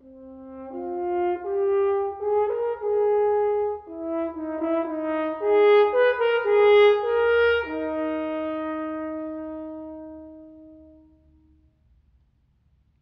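Unaccompanied French horn playing a slow phrase of single notes that grows louder to a peak about six to seven seconds in. It ends on a long held note that dies away.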